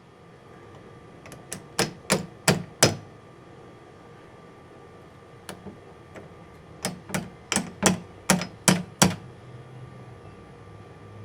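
Hammer tapping a roll pin home into an exterior door handle, in sharp metallic strikes. There are two runs, about six strikes and then about ten, roughly three a second.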